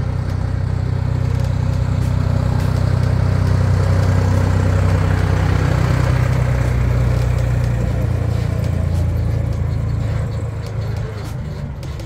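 An engine running close by, a steady low hum with rushing noise over it, that starts suddenly and fades near the end.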